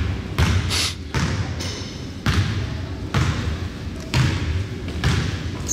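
Basketball being dribbled on a hardwood gym floor: a slow, even series of thuds, about one bounce a second.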